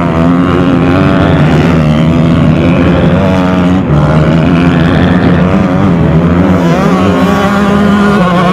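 Several motocross motorcycles running and revving as they ride through a corner, their engine notes overlapping, with one climbing in pitch near the end.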